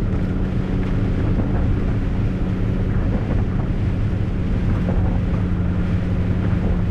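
MAN truck's diesel engine running steadily on the move, a constant low hum, under a wash of wind and tyre noise on the wet road.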